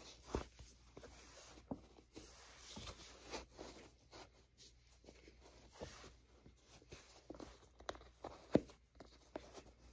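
Soft rustling and scattered light knocks from a Skechers mesh sneaker being worked by hand onto a socked prosthetic foot, with one sharper knock near the end.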